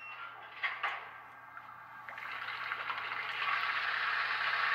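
A DCC sound decoder in a Bachmann On30 Baldwin 2-4-4-2 model steam locomotive plays its water-stop effect through the model's small speaker: a few faint knocks, then the rush of water filling the tender, swelling about two seconds in and holding steady.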